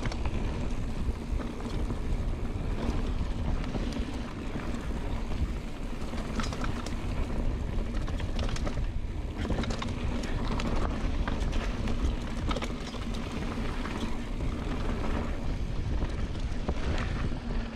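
Mountain bike rolling fast down a dirt flow trail: a steady wind rush on the microphone over the tyres' rumble, with frequent short rattles and clatters from the bike over bumps.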